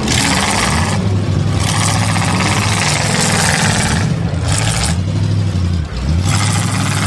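Demolition derby car engines revving, their pitch rising and falling, with loud stretches of revving that come and go every second or two.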